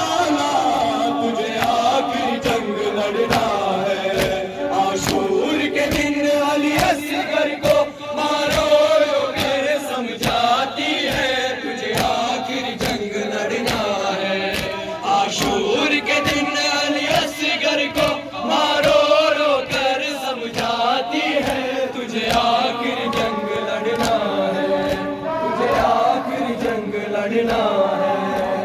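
A group of men chanting an Urdu noha (Shia lament) together through microphones. Under it runs a steady beat of open-hand slaps on chests (matam).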